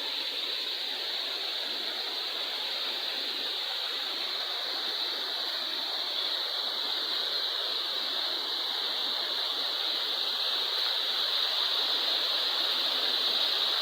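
Waterfall water rushing, a steady, even noise that grows slightly louder near the end.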